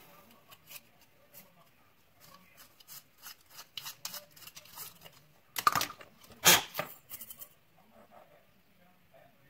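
Small clicks and taps of vacuum cleaner parts being handled, then two louder rasping scrapes around six seconds in, followed by a quick run of clicks.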